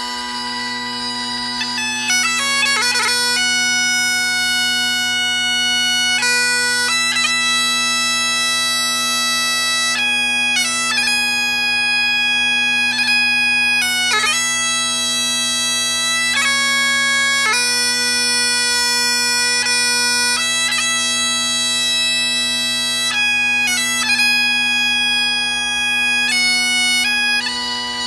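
Great Highland bagpipe playing: steady drones throughout, and about two seconds in the chanter starts a tune broken by quick grace-note flourishes. The tune stops shortly before the end, leaving the drones and a held note.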